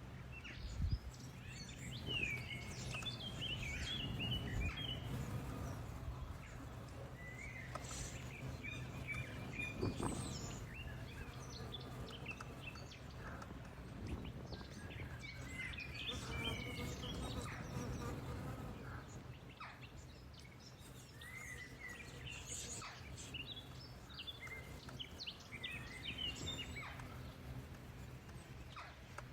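Songbirds chirping and singing in scattered bursts of short, quick, wavering notes, over a steady low hum. A single thump comes about a second in.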